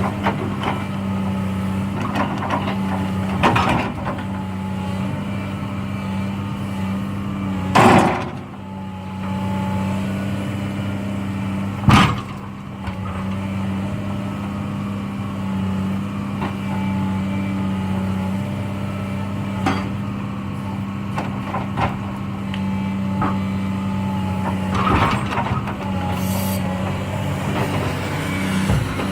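Excavator's diesel engine running steadily with a constant low hum, broken by a few sharp knocks of logs being dropped and set onto the log truck, two of them much louder than the rest.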